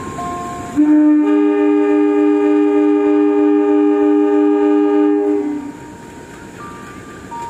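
Air horn of a KAI CC203 diesel locomotive sounding one long, low two-note blast of about four and a half seconds. It starts a little under a second in, and the second note joins just after. It is the driver's departure horn, semboyan 35, answering the signal to leave.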